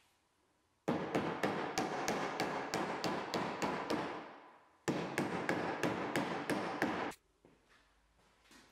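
Rapid tapping on the oak X-braces of a table leg frame as they are knocked together, about six sharp taps a second. It comes in two runs of a few seconds each with a short gap between, then a few scattered faint taps.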